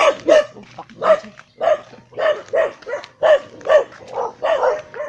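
A dog barking repeatedly, two or three short barks a second.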